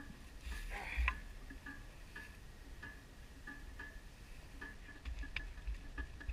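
Scuffs, rustling and a few sharp knocks of someone getting up and moving about in loose dry dirt and grass, with a shovel knocking near the end. Under it a faint high tick repeats about every half second.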